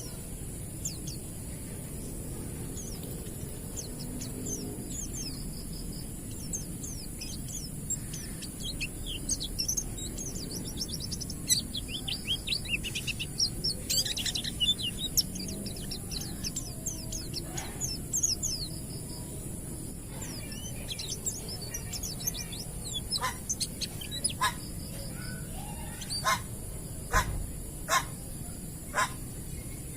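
White-eyes (pleci) singing in rapid high chirping twitters, busiest in the middle stretch. Near the end come a series of short sharp calls about once a second, over a steady high hiss.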